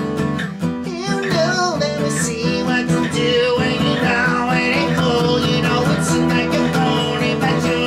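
Music: a guitar-backed song in a stretch without sung words, a wavering melody line over steady backing.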